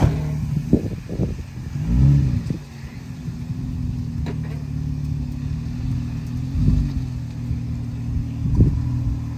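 An off-road 4x4's engine running at low speed, with a brief rev that rises and falls about two seconds in and another near seven seconds, and a few short knocks.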